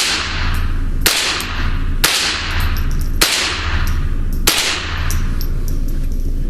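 Five suppressed .22 LR shots from a Ruger 10/22 with a SilencerCo Sparrow suppressor, firing Federal bulk-pack copper-jacketed rounds about one a second. Each is a sharp crack followed by a long echo off the indoor range walls.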